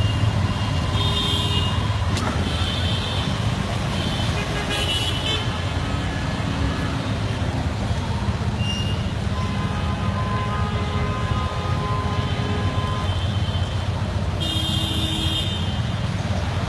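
Steady traffic rumble on a flooded street, with short high vehicle horn toots several times and a longer held horn tone in the middle.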